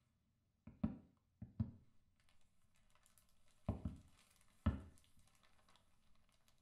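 Heavy footsteps on a wooden floor, several steps in pairs, with a thin white sheet rustling and crinkling as it is shaken out and laid down over a body.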